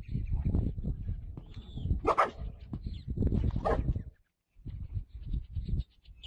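Dog barking at a donkey that is nosing into its food: two sharp barks, about two seconds in and again about a second and a half later, over a low rumble of scuffling.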